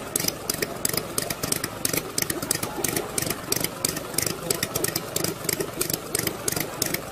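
Miniature working model internal-combustion engine running at idle, its exhaust popping sharply about four to five times a second, a little unevenly, over a steady mechanical hum.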